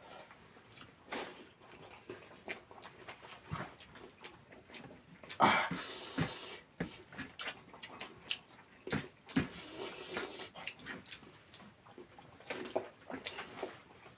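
Close-up eating sounds: wet chewing and lip smacking while eating chicken curry with rice, a steady run of short sticky clicks. Louder smacking comes about five seconds in and again near ten seconds.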